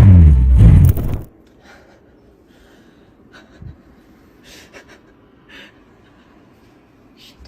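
A vehicle engine revving, its pitch rising and falling, then cutting off sharply about a second in. After that it is quiet, with a few faint soft sounds like breathing.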